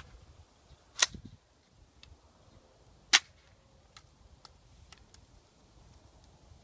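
Sharp metallic clacks from a short-barrelled 5.56 pistol being handled: one at the start and louder ones about one and three seconds in, with a few fainter clicks after.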